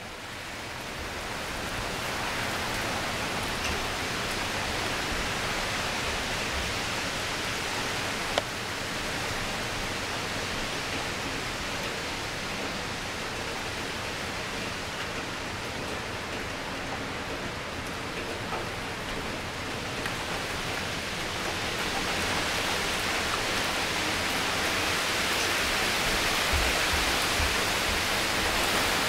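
Heavy rain from a tropical-storm squall falling steadily on pavement, cars and foliage, with gusting wind. The downpour grows louder over the last third. A single sharp click about eight seconds in.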